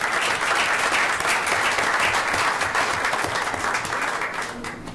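Audience applauding, many pairs of hands clapping at once, dying away near the end.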